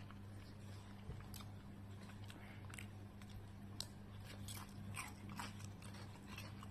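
A person chewing a mouthful of spiced Indian breakfast dish with peanuts in it close to the microphone: faint, irregular wet mouth clicks and small crunches. A steady low hum runs underneath.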